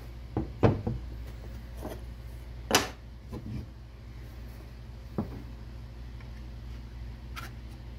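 Knocks and clunks of a steel axe head and a wooden axe handle being picked up, set down and fitted together on a plywood workbench: several short knocks, the loudest a sharp clunk a little under three seconds in, over a steady low hum.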